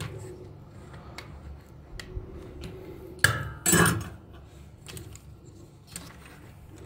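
A sharp metallic click and then a louder ringing clink and rattle about three and a half seconds in, as a soldering iron is dropped into its coiled metal stand. Small clicks and knocks of hard plastic toy parts being handled run around it.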